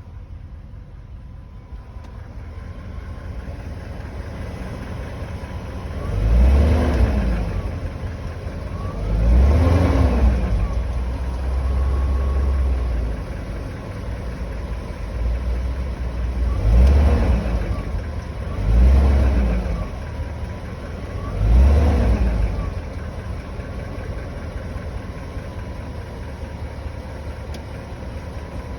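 1998 BMW 540i's 4.4-litre V8 idling and revved briefly five times, each blip rising and falling back to idle. This is the knocking noise the owner is showing.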